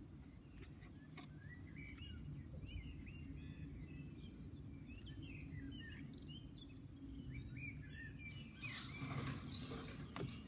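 Small birds chirping repeatedly in short rising and falling calls over a steady low outdoor background hum, with a brief burst of handling noise near the end.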